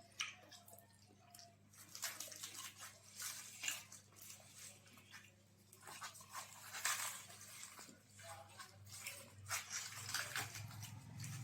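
Eating sounds from people eating puri and chole by hand: irregular soft smacks, clicks and chewing noises, over a low steady hum that grows louder near the end.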